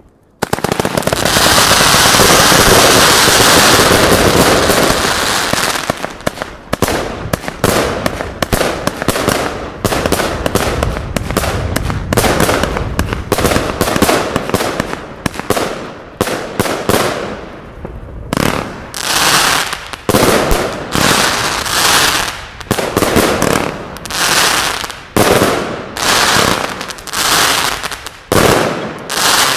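Consumer firework battery going off. It starts suddenly with a loud rushing burst about half a second in, then fires a rapid string of shots and crackling. From about eighteen seconds in it settles into evenly spaced separate bursts, about three every two seconds.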